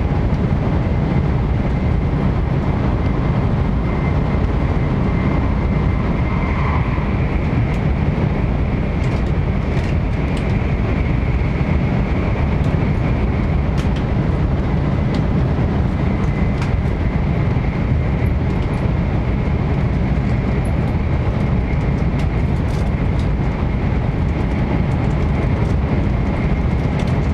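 Train running, a steady rumble and rushing noise with a faint steady whine above it.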